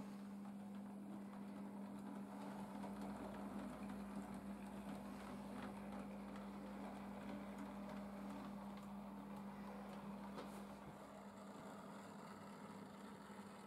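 Model railway train running: a locomotive's small electric motor hums steadily while its wheels and the coaches rumble along the track.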